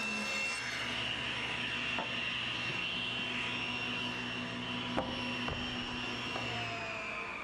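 Table saw running as a pine board finishes a rip cut, then spinning freely with a steady whine. A few sharp wooden knocks come as the boards are handled. Near the end the motor is switched off and its pitch starts to fall as the blade coasts down.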